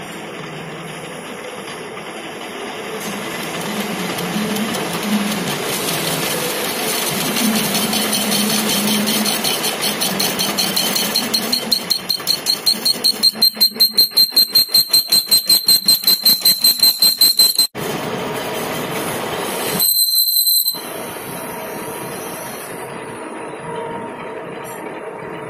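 Lathe turning a large hydraulic cylinder piston, the cutting tool working the spinning metal. About halfway through, a high squeal pulses rapidly, about nine times a second, for several seconds and then cuts off suddenly; a shorter squeal follows a couple of seconds later.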